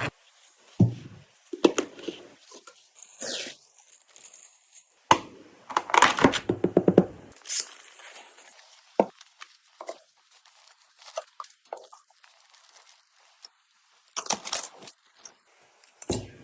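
Intermittent handling sounds of PC building: bursts of rustling and tearing of packaging, with scattered clicks and knocks of parts being handled.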